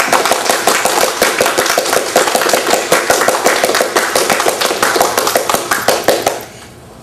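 Applause: a group of people clapping in quick, irregular claps, which stops abruptly near the end.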